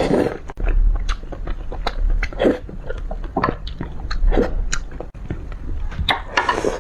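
Close-miked eating: biting and chewing with many quick wet clicks and smacks, and a few louder bites.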